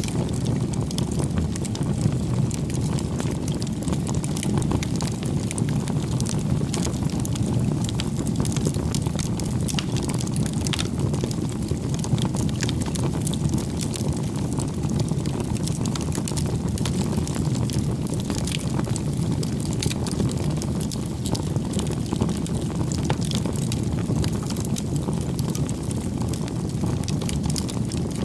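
Wood fire crackling: a steady low rumble with many small, irregular pops and snaps.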